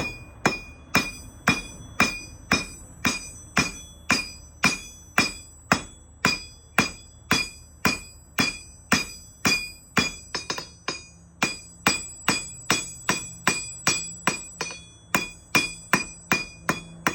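Hand hammer striking hot steel on a Vevor 66 lb London pattern steel anvil, forging a 1/4-inch drive-in hook. The blows fall at a steady pace of about two a second, each followed by a short, bright metallic ring from the anvil.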